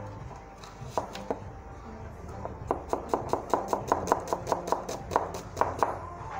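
Chef's knife chopping a red onion on a cutting board: two single strokes about a second in, then a quick even run of strokes, about five a second, for some three seconds.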